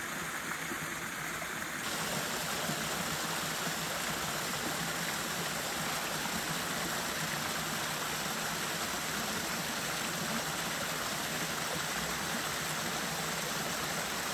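Small waterfall splashing steadily into a shallow pool and running on down a stream, an even rush of water. It gets a little louder and brighter about two seconds in.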